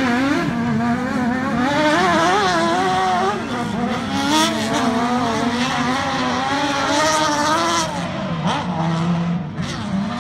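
Engines of several autocross race cars on a dirt track revving hard, their pitch rising and falling repeatedly as they accelerate and back off.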